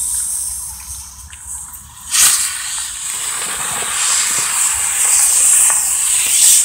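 King Claw wheeled ground firework lit and spraying sparks: after a fainter hiss from the fuse, it catches with a sudden burst a little over two seconds in, then hisses steadily and loudly.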